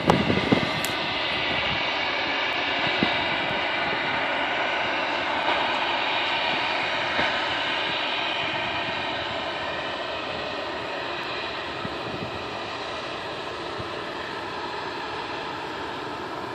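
Jet airliner's engines running on the runway, a steady rushing whine that slowly fades. Wind buffets the microphone briefly at the start.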